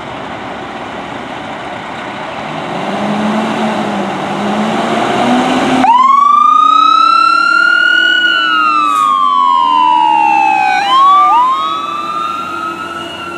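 2006 Spartan Gladiator Classic fire engine pulling out on an emergency response. Its engine revs for about six seconds, then the siren cuts in with a sudden rising wail, slides slowly down in pitch, and winds up again near the end.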